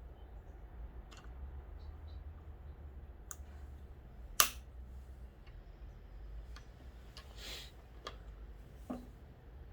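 Scattered clicks and taps of small fishing-rod reel-seat parts being handled during repair. One sharp, loud click comes about four and a half seconds in, and a brief scrape follows near the end.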